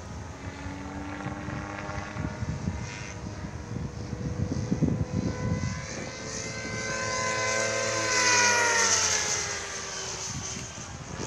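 Radio-controlled model aircraft in flight, its motor and propeller whine growing louder to a peak about eight seconds in, then dropping in pitch as it passes by. Wind rumbles on the microphone underneath.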